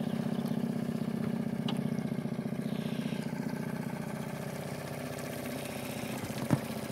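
Small Suzuki outboard motor idling with a steady, fast pulsing hum. A single sharp knock sounds near the end.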